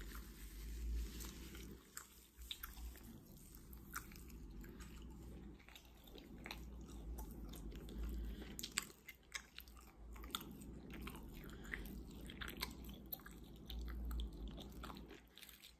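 Close-up chewing of food: soft, irregular wet smacks and small clicks of a mouth eating, faint, over a low steady hum.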